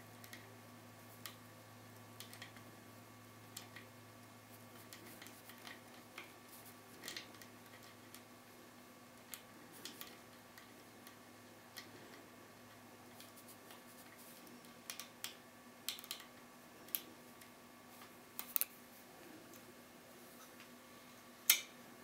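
Faint, irregular metallic clicks and ticks as a homemade pick and tension wrench work the pins inside a Bricard Serial euro cylinder lock, the clicks coming more often in the second half, with the loudest one near the end, over a faint steady hum.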